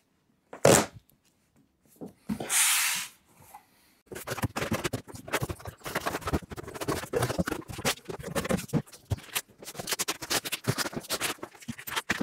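Cardboard packaging being torn open and handled: a brief rip, then a longer tearing sound about two and a half seconds in. After that comes a dense run of rustling, scraping and knocking as box flaps and cardboard inserts are pulled apart and lifted out.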